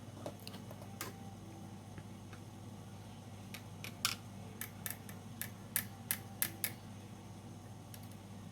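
Sharp clicks and snaps of small metal and plastic parts as a G17 spring pistol replica is taken apart: one click about a second in, then a quick run of about nine clicks a few seconds later, over a steady low hum.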